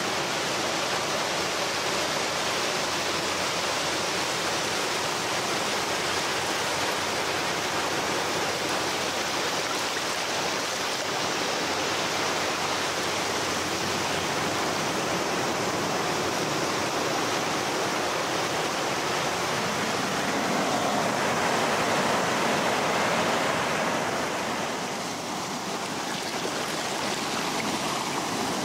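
Small ocean waves washing and lapping over a shallow sandy shore, a continuous wash of water that swells louder about twenty seconds in and eases a few seconds later.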